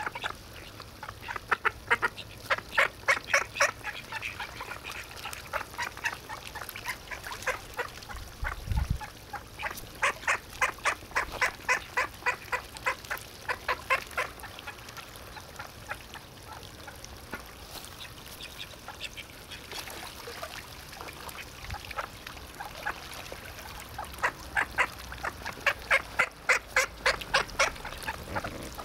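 Ducks quacking in loud, rapid runs of calls, in three bouts: about a second in, around the middle, and near the end.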